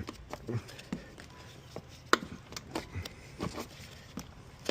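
Scattered light knocks and clicks of hands working around a car door and its fittings, with one sharper click about two seconds in.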